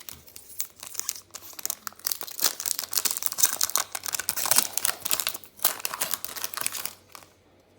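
A trading-card pack wrapper being torn open and crinkled in the hands, a dense rustling and tearing with many small crackles that stops about seven seconds in.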